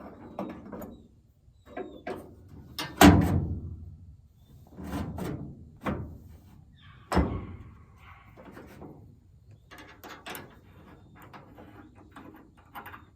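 Allen wrench working the bolts of a pickup truck's bed side rail: a string of knocks and clicks, with the loudest knock about three seconds in and a few more over the next four seconds.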